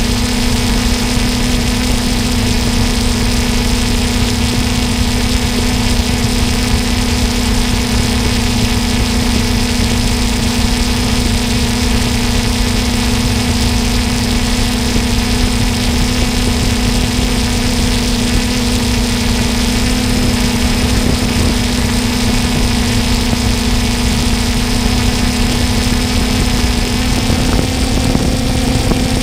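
Quadcopter drone's motors and propellers humming steadily in flight, heard on its own microphone, with a rough low rumble of wind noise. The pitch steps up slightly near the end.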